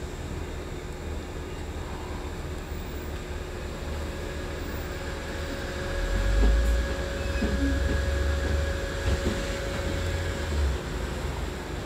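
Cabin noise on the upper deck of a Wright Electroliner battery-electric double-decker bus in motion: a steady low rumble with a faint steady whine. The rumble grows louder from about halfway through and eases near the end.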